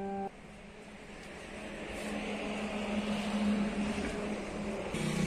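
Motor vehicle engine noise growing steadily louder over a few seconds, a hum under a broad rushing noise, as of a vehicle approaching on the road. A short musical chord cuts off just after the start.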